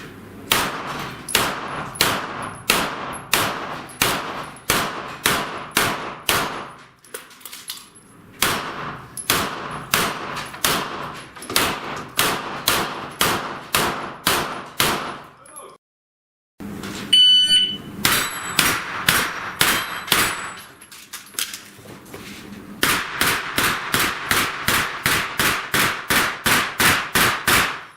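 Strings of rapid pistol-calibre gunshots, about two to three a second, in several runs separated by short pauses; the last run is the fastest. A short high beep sounds a little past halfway, with shots following straight after it.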